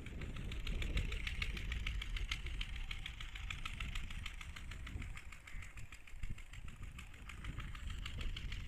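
Engine running steadily with a rapid, regular knocking beat.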